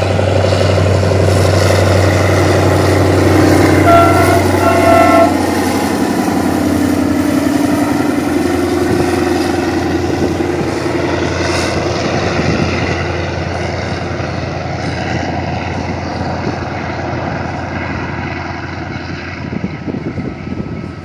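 DE24000-class diesel-electric banking locomotive passing under load, its diesel engine giving a steady low drone over the rumble of wagons on the rails. Two short horn blasts sound about four and five seconds in. The engine and rail noise then fade steadily as the train moves away.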